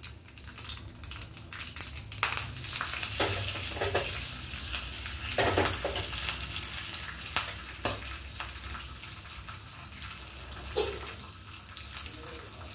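Tempering (tadka) of mustard seeds, dried red chillies and cumin sizzling and crackling in hot oil in a small pan. The sizzle grows stronger about two seconds in and dies down near the end, with a few sharp clicks and knocks among it.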